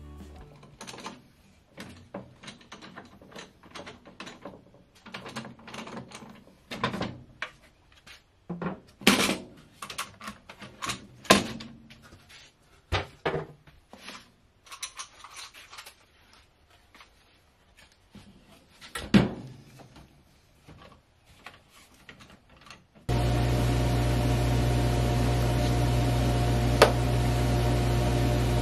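Knocks and clatter of bar clamps and wooden parts being set and tightened for a glue-up, with a few sharper knocks. About 23 seconds in this gives way abruptly to a random orbit sander running steadily on a wooden panel.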